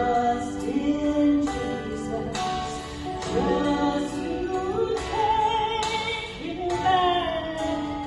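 A woman singing into a handheld microphone over instrumental accompaniment, her voice holding and gliding through notes.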